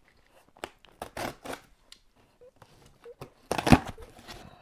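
Box cutter slitting the packing tape on a cardboard shipping box, with scattered scrapes and taps, then a louder rip of tape and cardboard about three and a half seconds in as a flap is pulled open.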